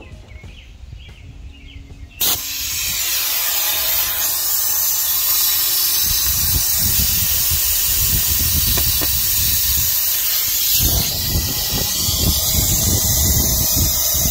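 Compressed air rushing through a venturi coolant vacuum-fill tool on a truck's degas bottle: a loud, steady hiss that starts abruptly about two seconds in. This is the tool pulling a vacuum on the cooling system before the fresh coolant is drawn in.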